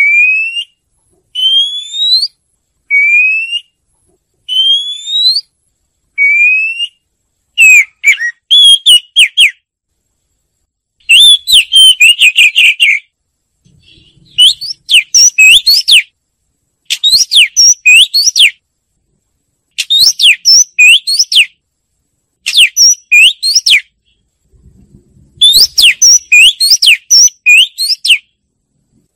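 Oriental magpie-robin singing. It opens with a run of clear rising whistles, one about every second and a half, then switches to quick phrases of many sharp, varied notes separated by short pauses.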